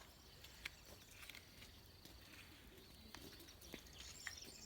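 Near silence with a few faint clicks and taps from small plastic toy accessories being handled, the clearest about a second in.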